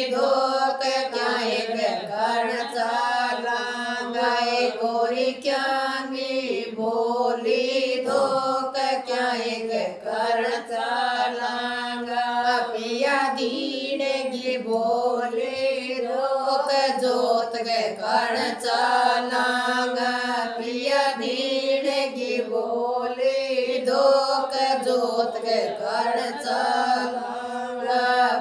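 A group of village women singing an old Rajasthani folk bhajan to Baba Ramdev together, in a steady chant-like melody.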